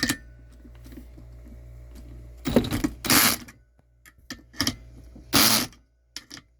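Drill with a 10 mm socket driving bolts down: the motor hums steadily, then gives several short loud bursts as the clutch slips and clicks at the set torque.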